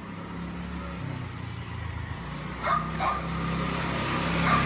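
A dog barking: two short barks close together about two and a half seconds in, and another near the end. Under the barks is a steady low hum and a rushing noise that grows louder toward the end.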